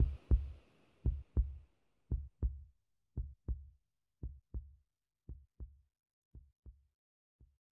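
Heartbeat sound effect: low double thumps (lub-dub), about one pair a second, growing steadily fainter. The wash of surf dies away in the first second.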